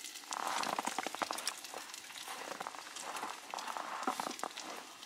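Small wood fire in a portable fire pit crackling, with irregular sharp crackles and pops, and a short rustle about half a second in.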